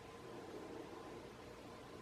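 TAT industrial ceiling fan running steadily, a faint even hum with a whoosh of moving air.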